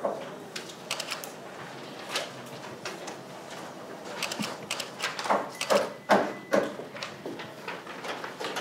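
Courtroom room tone with faint indistinct murmured voices and scattered light clicks and rustles. The murmuring grows more noticeable in the second half.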